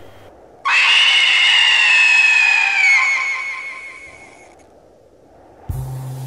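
A sloth's long, high-pitched squealing scream, sliding slightly down in pitch and fading out over about four seconds. Music with a deep bass note comes in near the end.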